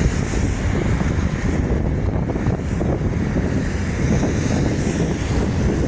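Wind buffeting the microphone: a steady low, uneven rumble.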